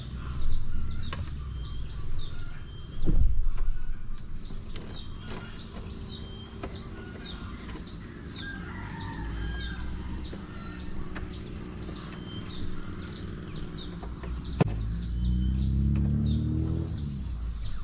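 A bird calling in a steady series of short, high chirps, about two a second, over a low outdoor rumble. Two loud knocks in the first few seconds come from the boat's outboard motor being handled at the stern, and a low hum rises in pitch near the end.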